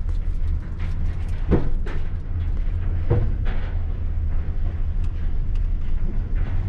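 Steady low rumble of a vehicle on the car-carrying shuttle train, with a couple of short knocks, about a second and a half and about three seconds in.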